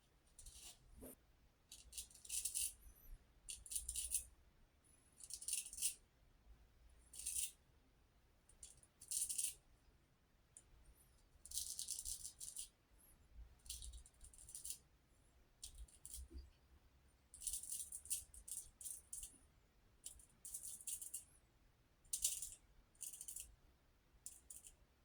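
Razor blade scraping through lathered stubble in a run of short, irregular strokes, each a brief scratchy rasp, some in quick clusters.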